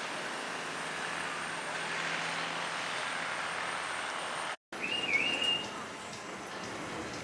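Steady city traffic noise. It cuts out abruptly for a moment just past halfway, and then a short, high, whistled chirp dips and rises in pitch.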